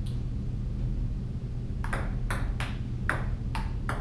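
Ping pong ball clicking off paddles and the table in a table tennis serve and rally: a faint click at the start, then a quick run of about seven sharp clicks in the second half. A steady low hum runs underneath.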